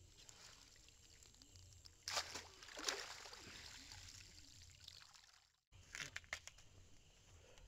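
Water pouring and trickling off a fishing net as it is hauled out of the water, loudest about two seconds in and then dying away to dripping, with a few small splashes near the end.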